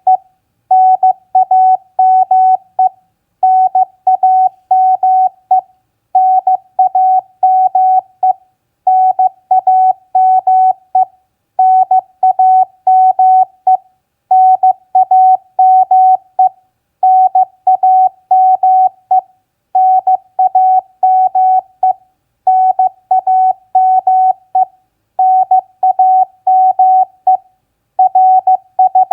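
Morse code practice tone sent at 15 words per minute: a single steady-pitched beep keyed into short dits and longer dahs, in groups of characters with a brief pause about every two and a half to three seconds. The groups spell out common contact exchange elements such as name, signal report and location.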